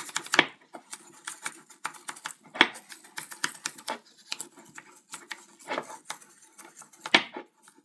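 An old toothbrush wet with xylene scrubbing the internal threads of an aluminium workpiece: quick irregular scratching and clicking of bristles on metal. There are a few louder knocks, about half a second, two and a half and seven seconds in.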